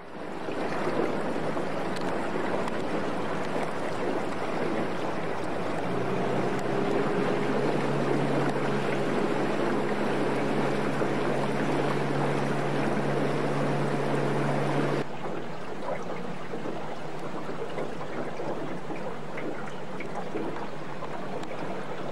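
Boat motor running underway, with water rushing past the hull. About six seconds in the engine note steps up as the boat speeds up. About two-thirds of the way through the sound drops abruptly to a quieter, steadier rush.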